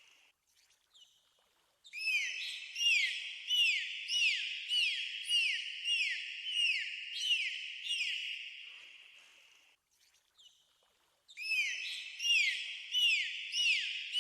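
Dolphins whistling: short, high, arching whistles repeated about one to two a second. They come in two bouts, the first starting about two seconds in and fading away near ten seconds, the second starting again about a second later.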